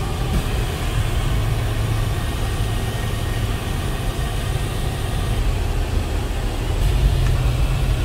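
Cabin noise inside a moving passenger van: a steady low engine and road rumble with tyre and wind noise over it.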